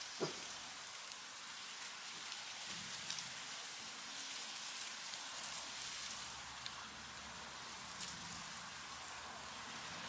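A herd of guinea pigs munching and rustling through a pile of fresh-pulled weeds: a steady fine crackle of many small bites and shifting leaves, with scattered sharper crunches.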